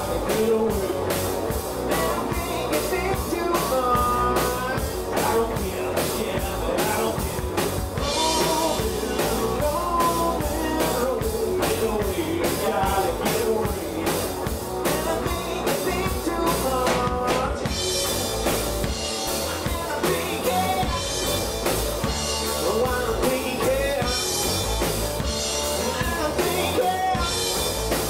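A rock band playing live: electric guitars and a drum kit keeping a steady beat, with a lead vocalist singing.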